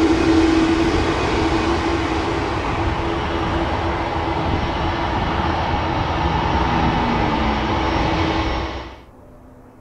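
Boeing 787-10 airliner's jet engines running loud and steady, a roar with a low droning tone, easing slightly before cutting off suddenly about nine seconds in.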